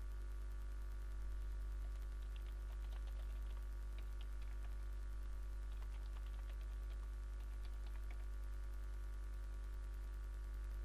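Faint computer keyboard keystrokes in short irregular runs, between about two and eight seconds in, over a steady low electrical hum.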